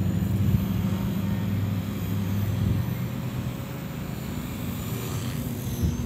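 Electric Walkera V450D03 RC helicopter flying, its rotor and motor giving a steady low hum, with wind rushing over the microphone. The wind is strong enough to push the helicopter back.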